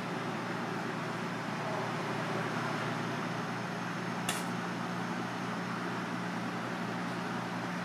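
Steady mechanical hum of kitchen machinery, with one short sharp click a little after four seconds in.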